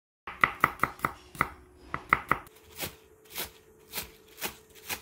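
Chef's knife chopping green onions on a wooden cutting board. A quick run of sharp knocks comes first, then from about halfway the strokes turn slower and softer, about two a second.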